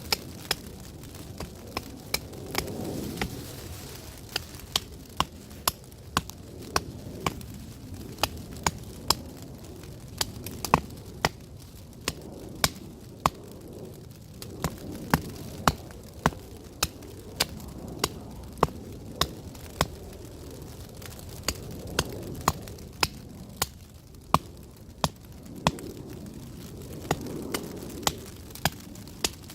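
Sharp, short wooden knocks at about two a second with brief pauses, typical of chopping wood with a blade, over a low, swelling rush of background noise.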